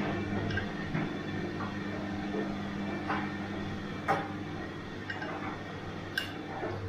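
Bosch washing machine running mid-cycle: a steady low motor hum with a few irregular sharp clicks and knocks, the loudest about four seconds in.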